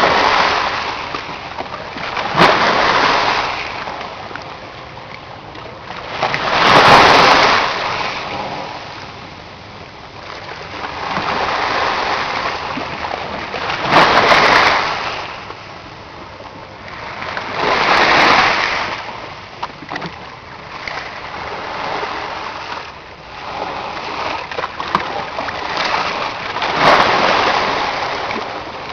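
Sea waves washing in and splashing, each surge swelling and falling away every few seconds.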